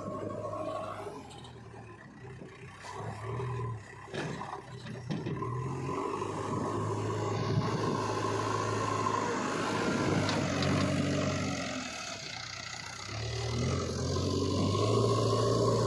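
Diesel engines of heavy earth-moving machinery running, the engine speed rising and falling several times. A rougher, noisier stretch comes in the middle.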